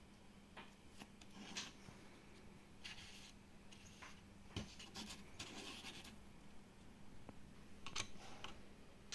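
Faint handling noise of 3D-printed plastic telescope parts: scattered scrapes and a few light clicks as the small tube is fitted into its rocker base, the loudest scrapes coming about five to six seconds in and around eight seconds in.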